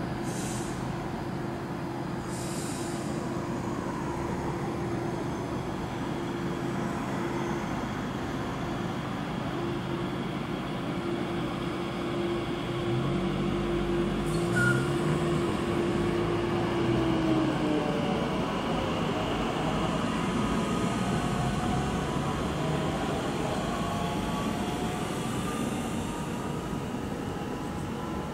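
Electric S-Bahn multiple unit, a Bombardier Talent 2, pulling away from the platform. A steady electric hum gives way to the stepping, then rising whine of its traction drive as it accelerates, loudest around the middle.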